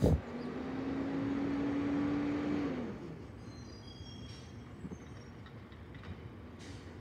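A thump, then a motor vehicle's steady engine hum that swells for about three seconds and drops in pitch as it fades away.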